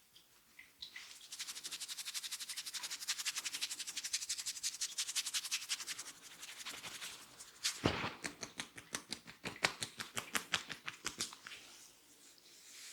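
Head massage: fingers scratching rapidly through hair on the scalp, about ten quick strokes a second for several seconds. Near the middle comes a single louder thump, followed by slower, uneven scratching strokes.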